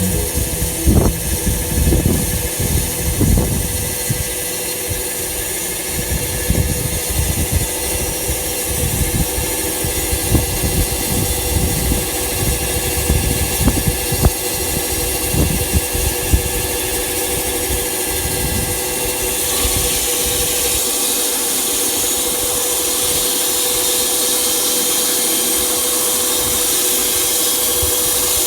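Wood-Mizer LT15 Wide bandsaw mill running, with irregular low knocks and thumps for most of the time; about twenty seconds in it changes to a steadier hiss.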